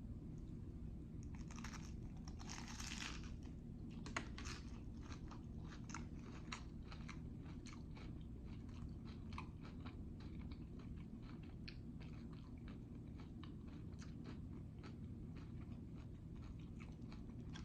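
Close-miked chewing of jalapeño poppers: a crunchy bite about two seconds in, then many small chewing clicks. A steady low hum runs underneath.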